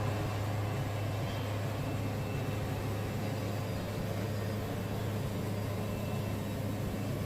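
Wood-Mizer band sawmill running steadily under power during a cut through a log: an even engine drone with a strong low hum that holds level throughout.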